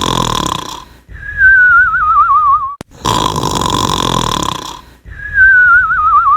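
Cartoon snoring sound effect repeating twice: a rasping snore in, then a thin whistle out that wobbles as it falls in pitch.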